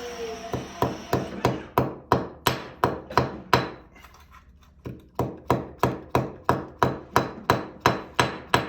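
Hammer tapping repeatedly on small terminals to flatten them, about three sharp strikes a second, in two runs with a short pause about four seconds in.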